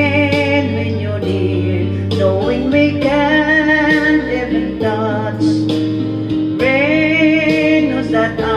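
A woman singing through a handheld microphone over an instrumental backing track, holding long notes with vibrato.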